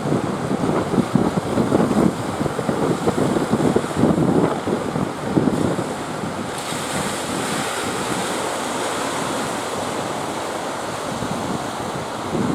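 Strong wind buffeting the microphone over the wash of sea surf. The gusts ease about halfway through, leaving a steadier rush of waves.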